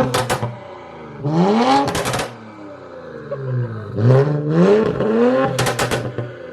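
2021 Infiniti Q50 Red Sport's twin-turbo 3.0-litre V6 being revved in repeated blips, each rising in pitch and falling back to idle. Sharp crackles come at the top of some of the revs.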